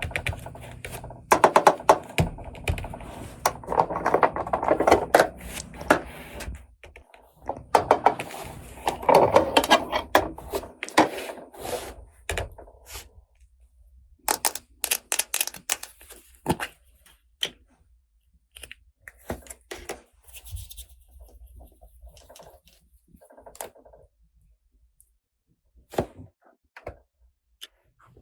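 Plastic toy pieces and packaging being handled: rustling and scraping with many small clicks and taps for the first dozen seconds, then scattered single clicks and knocks of plastic parts.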